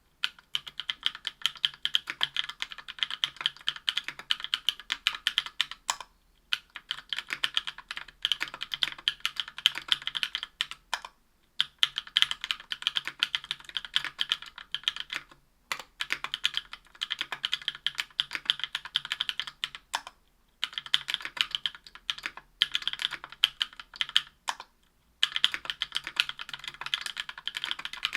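Steady typing on a mechanical keyboard with lubed Durock Cherry Blossom 65 g linear switches (Krytox 205g0) in an aluminium Tofu 60% case with an aluminium plate and GMK keycaps. The keys are struck in continuous runs of a few seconds, each broken by a brief pause.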